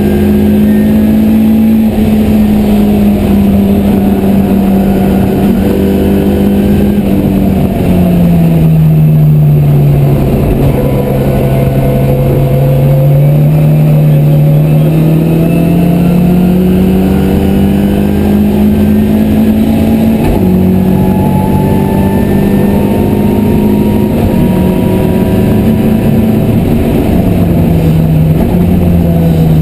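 Ford Escort Mk1's Zetec four-cylinder engine under hard track driving, heard on board. The note sinks about eight seconds in, then climbs steadily for around ten seconds. It drops sharply once at a gear change, with smaller dips near the end.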